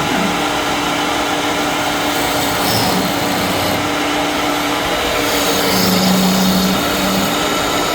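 A power tool's electric motor running steadily in a woodworking shop: an even hum over a dense hiss, with a lower tone added for about a second around six seconds in.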